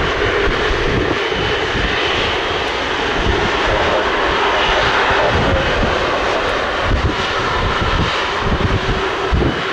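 Airbus A330-243 MRT's twin Rolls-Royce Trent 700 turbofans running steadily as the jet turns on the runway to line up: a continuous jet whine and rush over an uneven low rumble.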